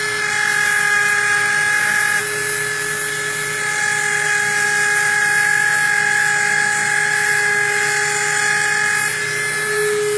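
High-speed rotary engraving tool whining steadily, its pitch and level stepping slightly about two seconds in and again near the end.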